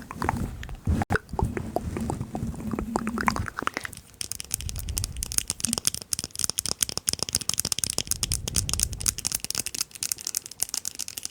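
Stomach growling: irregular low gurgles and rumbles, loudest in the first three and a half seconds. From about four seconds in, a dense, fast crackling rustle takes over, with a few fainter rumbles under it.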